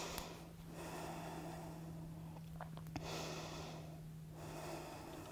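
A woman breathing slowly and audibly while holding a yoga forward fold: a few long, soft breaths in and out, with a faint steady hum underneath.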